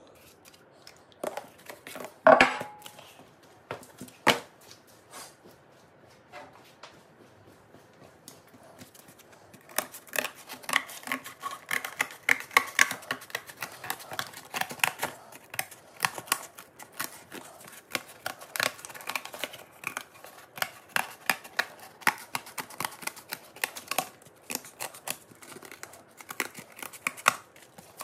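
Masking tape being pulled off the roll and cut into strips to mask a motorcycle wheel rim for paint: a dense run of quick, sharp crackles and snips from about ten seconds in, after a few scattered clicks and one louder clatter about two seconds in.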